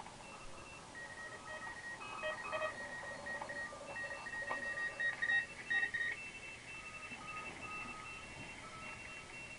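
Morse code (CW) signals from several amateur stations at once, heard through a vintage Ameco shortwave receiver: overlapping keyed beeps at different pitches over a faint band hiss. One tone stands out louder about halfway through.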